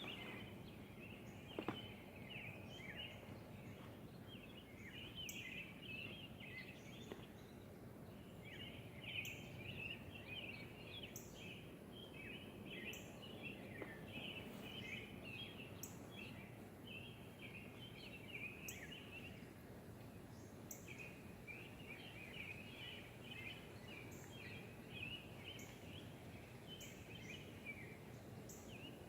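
Birds chirping and chattering continuously over a steady low background noise, with faint high ticks about every two seconds and a single sharp click near the start.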